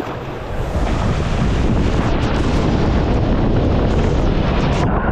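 Wind buffeting the microphone: a loud, steady rumble that grows louder about a second in.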